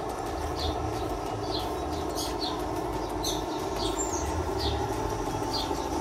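Radio-controlled model bulldozer driving forward on its tracks, a steady electric motor and gear whine with track rattle. A bird chirps over it about once a second.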